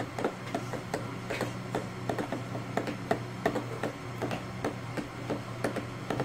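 Light, irregular clicking and tapping of plastic cups, about three clicks a second, as an orange plastic cup is held tipped against a small measuring cup to pour slime ingredients. A steady low room hum lies underneath.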